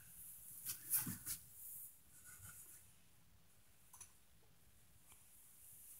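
Quiet room tone with a few faint clicks and knocks, a cluster of them about a second in and one more near four seconds.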